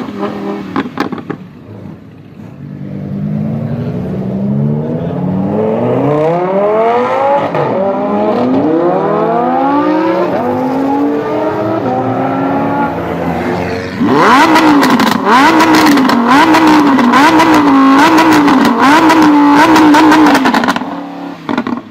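High-revving V10 sports car engine, climbing in pitch again and again as it accelerates hard through the gears, then blipped up and down in quick revs about once a second before it cuts off just before the end.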